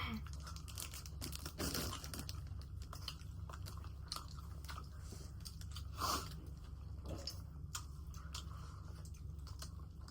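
Close-up mukbang eating sounds: chewing and crunching food with many small mouth clicks and smacks, and two louder crunches, about two seconds in and about six seconds in.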